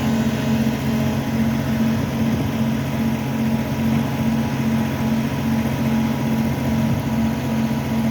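An engine idling steadily at a constant pitch.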